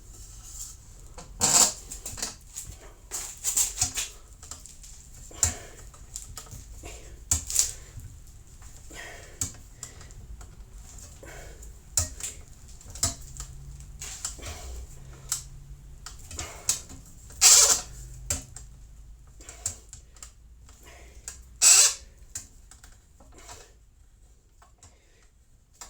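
Irregular taps and clicks of a small tool working on a brass trumpet during dent repair, with a handful of louder knocks among them: a dent being tapped down.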